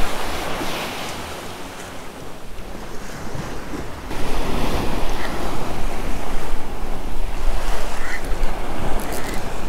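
Ocean waves surging and washing against a concrete seawall, with wind buffeting the microphone, the rush and wind rumble growing louder about four seconds in.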